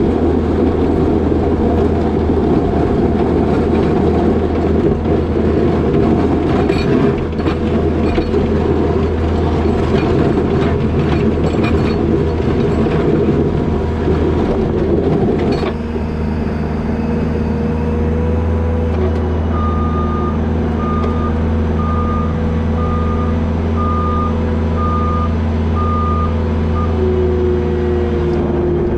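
New Holland L220 skid steer's diesel engine working hard with a clattering of knocks, as when pushing snow with a box plow. About halfway through the load drops suddenly and the engine settles into steady running. A few seconds later the backup alarm beeps about once a second, eight or so times.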